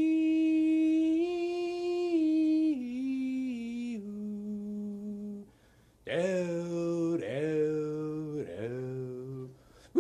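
A man singing a cappella in long, drawn-out notes, a mock pop song. A held note steps down in pitch over about five seconds, then after a short break a second phrase follows with notes that dip and rise.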